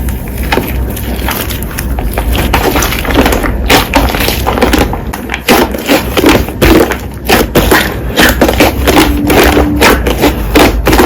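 Slime being pressed and squished by hand, giving a dense, irregular run of clicks and pops.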